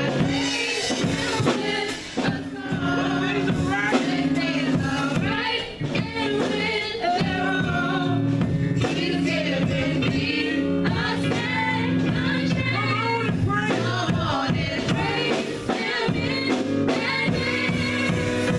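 Gospel music: male and female voices singing together over a band, with steady sustained low notes underneath.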